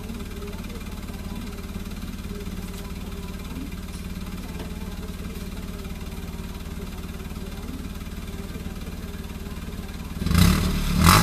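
Toyota Agya (Daihatsu Ayla) exhaust idling steadily at the tailpipe. Near the end the engine is revved twice in quick succession, a sharp, loud rise in the exhaust note.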